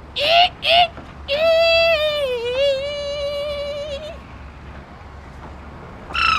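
A human voice imitating bird calls: two short chirps, then one long, high, wavering call held for almost three seconds that dips in pitch partway through.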